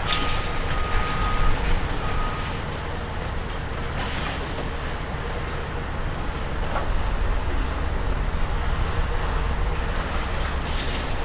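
Diesel engine of a Caterpillar hydraulic excavator running steadily while it demolishes a building, with a few sharp metal clanks and crashes of steel debris. A long high warning beep sounds twice near the start.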